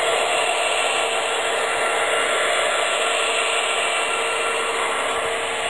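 MTH HO scale SD70M-2 model diesel locomotives with Proto-Sound 3.0 onboard sound running past on track, a steady rushing noise with a faint steady hum underneath.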